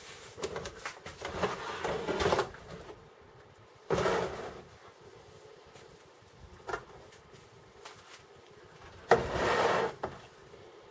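Handling noises of a rusted metal machine-gun drum magazine and plastic tubs: a run of knocks and clatter at first, then two short whooshing sounds about four and nine seconds in, with a single click between them.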